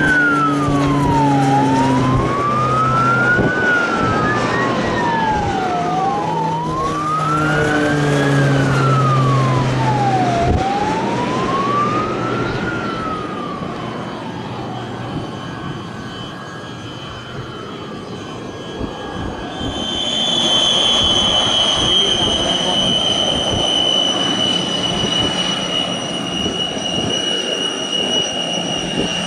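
A siren wailing slowly up and down over the drone of the Air Tractor AT-802's turboprop engine, the siren fading out about halfway through. About two-thirds in, the turboprop's high whine grows loud as the aircraft passes low, sinking slightly in pitch.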